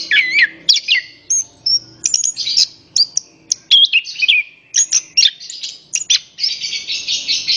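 Orange-headed thrush singing: a fast run of varied whistles and chirps, some sliding up and down in pitch, turning into a dense, scratchy chatter for the last second or so.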